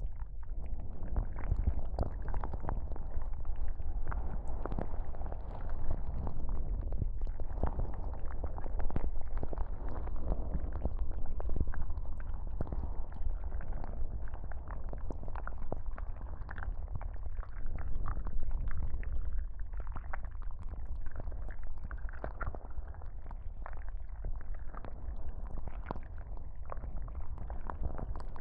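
Binaural ASMR tentacle sounds: continuous wet squishing and rubbing right at the microphones, dense small crackles over a steady low rumble, swelling and easing every few seconds.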